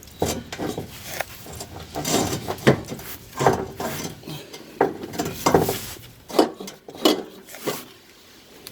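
Hand tools clinking and knocking against metal exhaust parts: an irregular run of sharp clanks and clicks, typical of wrench work on exhaust fasteners.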